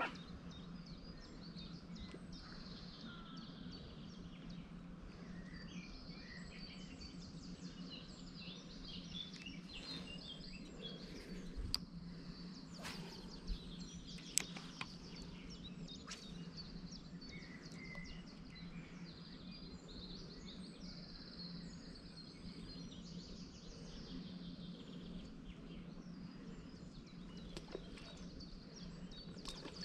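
Birds chirping and singing against a steady low hum, with a few sharp clicks near the middle.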